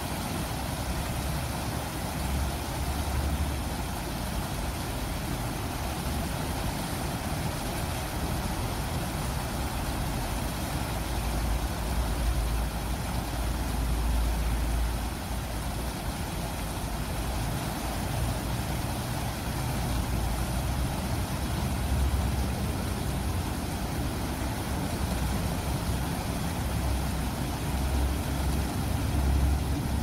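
Shallow stream water rushing and splashing over a low rock weir and riffle, a steady, even rush with a low rumble that swells now and then.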